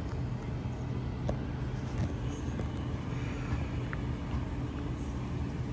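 Electric double-deck passenger train running close by, a steady low hum over an even rumble, with a few faint clicks.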